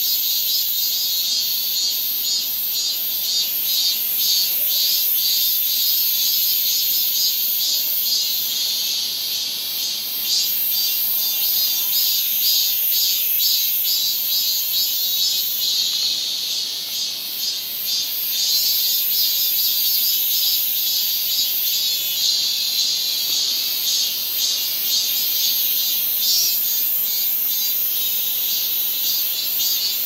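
Cicadas in the trees calling in a loud, high-pitched chorus with a fast, even pulsing, dipping briefly in loudness about two-thirds of the way through.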